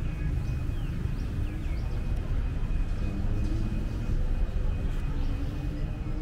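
Outdoor street ambience: a steady low rumble of passing traffic, with a thin high steady tone and a few short chirps about a second and a half in.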